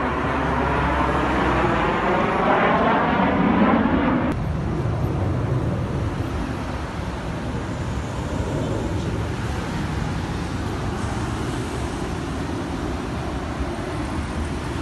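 Jet aircraft of an aerobatic formation passing overhead: a loud jet noise with a sweeping, phasing shift in pitch, building to a peak about three and a half seconds in and cutting off abruptly at an edit about four seconds in. After the cut comes a steadier, fainter jet noise from aircraft higher in the sky.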